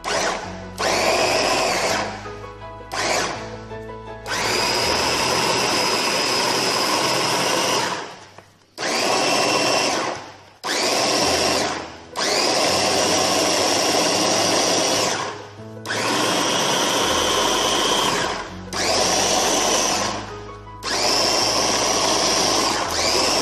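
Electric mini food chopper pulsed to chop fresh herbs: the motor whines up to speed and runs in about ten bursts, a few brief ones first, then longer runs of one to four seconds each, with short pauses between as the top button is pressed and released.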